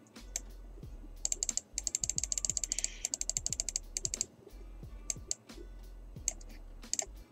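Typing on a computer keyboard: a quick run of keystrokes from about a second in to about four seconds, then a few single clicks, over quiet background music.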